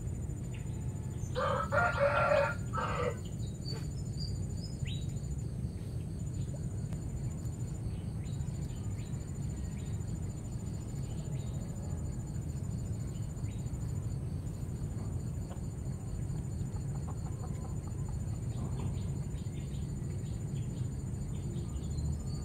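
A rooster crows once, a single call of under two seconds beginning about a second and a half in, over a steady low background rumble and a faint high insect buzz.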